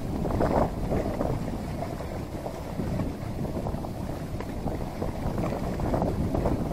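Wind buffeting the microphone: a steady low rumble that swells in gusts, around half a second in and again near the end.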